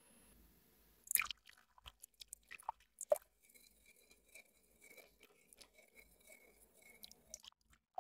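Wire whisk clicking and scraping against a glass bowl as hot milk is whisked into egg yolks. It starts with a few sharp knocks, then settles into an even stroke of about two or three a second.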